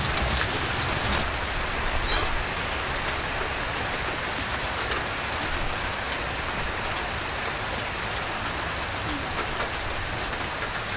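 Steady hiss of light rain falling, with a few faint taps of a knife on a wooden chopping board.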